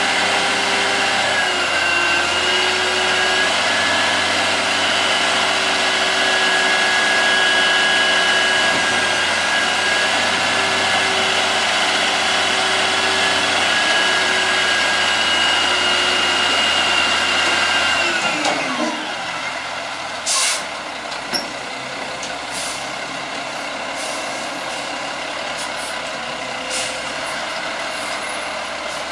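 Front-loader garbage truck's diesel engine held at high revs with a steady hydraulic whine while the arms hold the container tipped over the cab. About two-thirds through, the revs and whine glide down to idle as the arms lower, followed by a couple of short sharp hisses or clunks.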